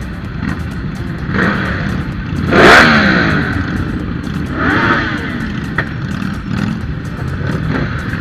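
Several superbike engines running together in a slow-moving group, with throttle blips revving up and back down, the loudest about two and a half seconds in and another near five seconds.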